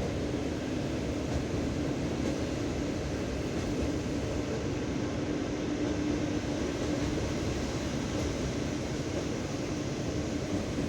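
Steady rumble of a moving passenger train heard from inside the carriage, with a steady hum running through it.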